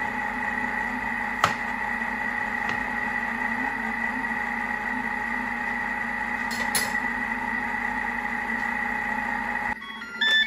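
Thermomix food processor running steadily with a whine while it fries and stirs a sofrito at Varoma temperature, speed 2. A click comes about a second and a half in. The motor stops abruptly near the end, and a few short electronic beeps follow as the program finishes.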